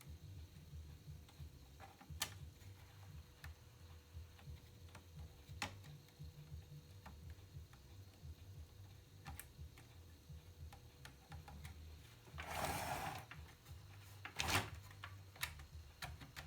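Scattered light clicks and taps of small parts and tools being handled during assembly work, with a short scraping rustle near the end followed by a sharper knock.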